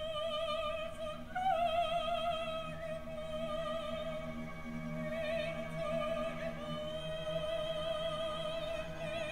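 Operatic soprano singing long held high notes with a wide vibrato, over a quiet low accompaniment.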